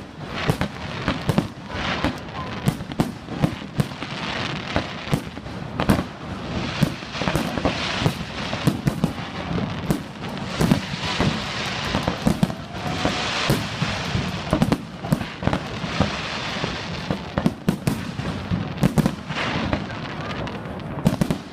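Fireworks display: shells bursting in quick, irregular bangs, several close together, with stretches of high crackling between them.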